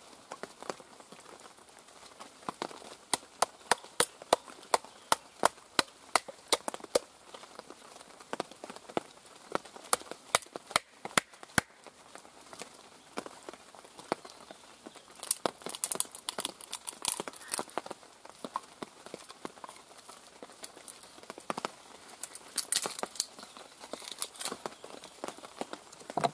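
A wooden baton knocking on the spine of a Mora Robust knife to split small kindling pieces, in two runs of sharp wooden knocks about two a second. Later comes a crackling of wood as the splits are pulled apart.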